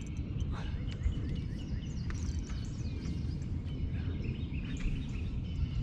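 Outdoor lake ambience: a steady low rumble with small birds chirping repeatedly in the background.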